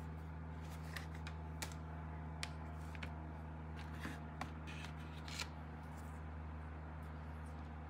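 A handful of light taps and clicks, about seven spread through the first two-thirds, as hands set down a plastic paint palette and pick up a visual timer on a cutting mat. A steady low hum runs underneath.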